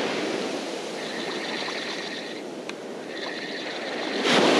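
Surf washing on the shore, with the whine of a spinning reel being cranked in two short spells, about a second in and again just after three seconds, as a lure is worked with a twitch-and-pause retrieve. The surf swells louder near the end as a wave comes in.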